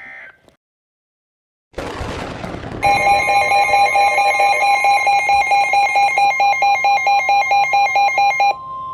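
Emergency alert signal between weather warnings: a short burst of hiss, then a loud, buzzy alarm beeping about four to five times a second over a steady high warning tone. The beeping stops near the end while the steady tone holds on.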